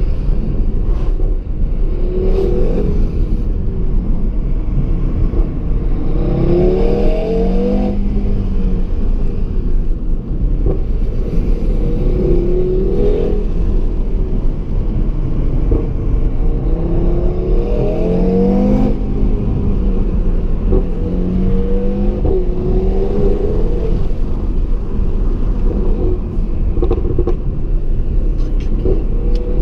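2017 Audi TT RS's turbocharged 2.5-litre five-cylinder engine under hard driving. Its pitch climbs under acceleration several times, each climb broken off by a drop at a gear change, over a steady low rumble.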